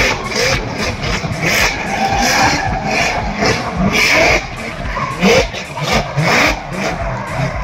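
Drift car sliding sideways: its engine revs rise again and again as the driver works the throttle, over the screech of the rear tyres spinning and skidding.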